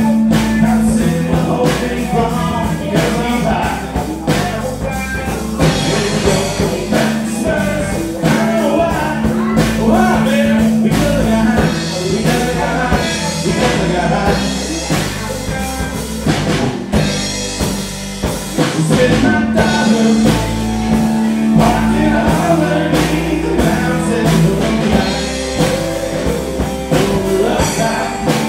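Live country band playing: a singer over electric guitars and a drum kit.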